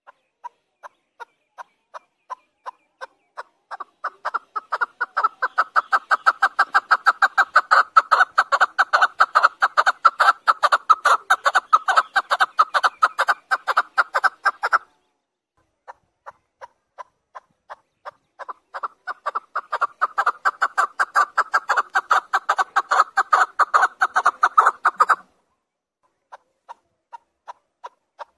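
Chukar partridge calling: a long series of sharp chuck notes that starts slowly and speeds up into a fast, loud run of about four or five notes a second. The run breaks off abruptly about halfway through, builds up again the same way, and stops a few seconds before the end, when slow single notes start again.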